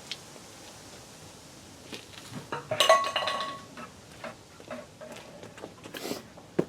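Metal tools or parts clinking and clanking as they are handled. One clank just under three seconds in is the loudest and rings briefly, and a few lighter knocks follow it.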